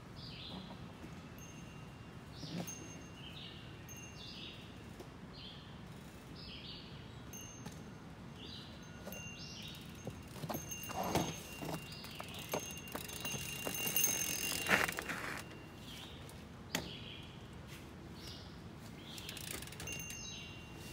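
Mountain bike riding down over rocks: knocks, clicks and rattles of tyres and bike on stone, loudest about halfway through as it passes close. Birds chirp repeatedly throughout.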